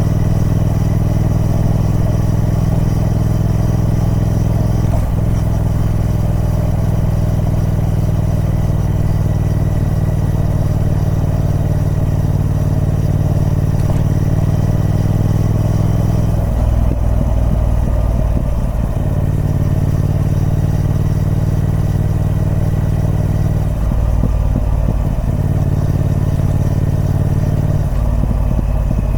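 Triumph Speed Twin 1200's parallel-twin engine running through its stock exhaust, holding a steady engine speed. Its note changes briefly about two-thirds of the way through and again near the end.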